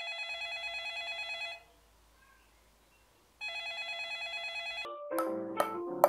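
An electronic telephone rings with a fast trill in two spells, each about one and a half to two seconds long, with a short silence between. About five seconds in, sharp knocks of a ball on a wooden paddle begin, mixed with short pinging notes.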